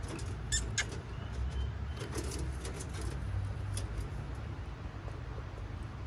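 Cockatiels in an aviary: scattered sharp clicks and scratches, the loudest two about half a second in, and a couple of faint short high chirps, over a steady low rumble.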